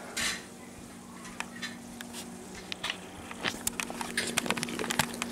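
Scattered light clicks and knocks of kitchen handling, few at first and coming thick and fast over the last couple of seconds, over a steady low hum.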